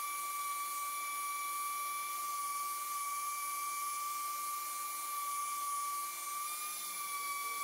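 Electric random orbit sander running steadily with a constant high whine while sanding a birch slab with 80-grit paper.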